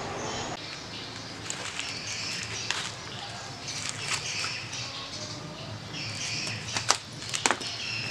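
Outdoor ambience with birds chirping, and a few sharp clicks or taps about seven seconds in.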